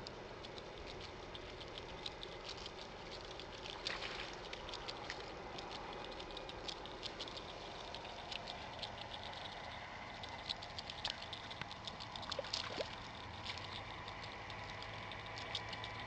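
White domestic geese pecking corn from the wet, muddy shoreline: quick, irregular clicking and pattering of their bills, busiest about four seconds in and again around ten to thirteen seconds.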